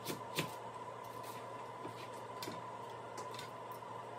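A kitchen knife chopping cilantro on a plastic cutting board: irregular, soft taps, a few close together near the start, then sparser. A faint steady high tone hums underneath.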